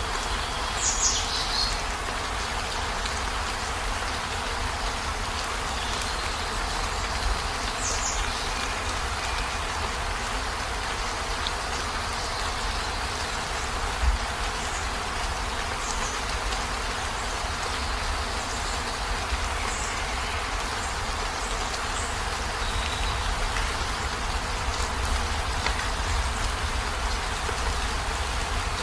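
Heavy rain falling steadily on a minivan's roof and windows, heard from inside the van, with a low rumble underneath. A few louder drips or taps stand out, the sharpest about fourteen seconds in.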